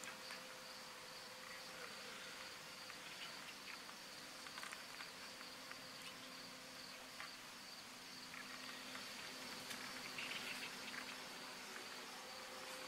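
Crickets chirping in a steady, high, even trill as an evening insect chorus, with a few faint ticks and a short scratchy rustle about ten seconds in.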